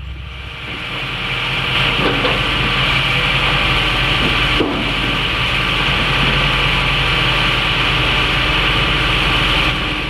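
Hitachi 225 USR excavator working, its diesel engine and hydraulics running steadily under load, building up over the first couple of seconds and then holding at a constant pitch.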